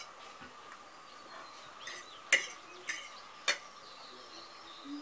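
Forks clinking and scraping against plates as two people eat noodles fast, with three sharp clinks about half a second apart in the middle.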